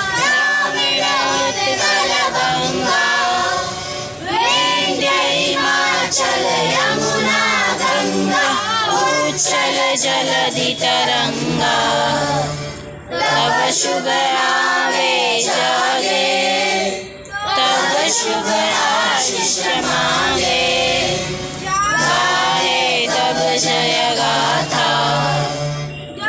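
A group of children singing together in unison, phrase after phrase, with short pauses for breath between lines.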